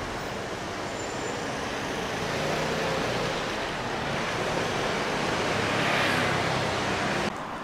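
Street traffic noise, swelling as a vehicle passes about six seconds in, then cutting off suddenly near the end.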